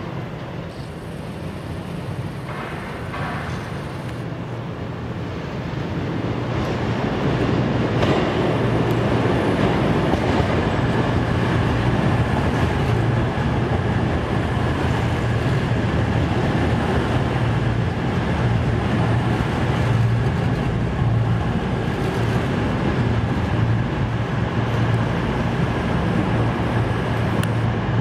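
Underfloor diesel engines of a CrossCountry Class 220/221 Voyager diesel multiple unit running close by, a steady low drone that grows louder about six seconds in and then holds.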